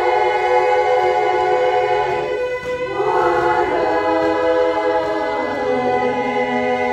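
Women's chorus singing a cappella in held chords. The harmony breaks briefly and moves to a new chord about three seconds in, and shifts again near the end.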